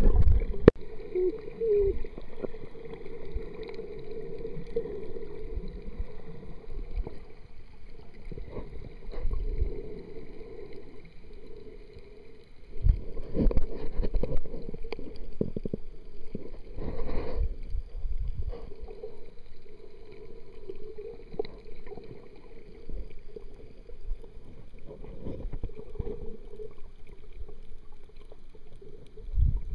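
Water sloshing and gurgling against a camera held underwater, heard muffled, with louder splashing surges about halfway through as the camera comes up near the surface.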